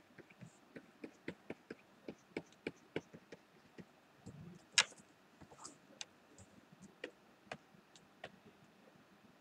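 Faint, irregular light clicks and taps, two or three a second, with one sharper click about five seconds in, from working a pen or mouse while painting at the computer.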